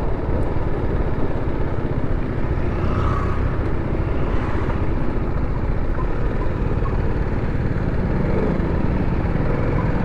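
Motorcycle engine running at low speed, with a steady rumble of wind and road noise on the helmet microphone as the bike rolls slowly toward a stop.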